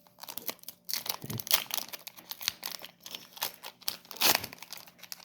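Foil wrapper of a Pokémon TCG booster pack crinkling and tearing as it is opened by hand, in a run of irregular crackles with the loudest rip about four seconds in.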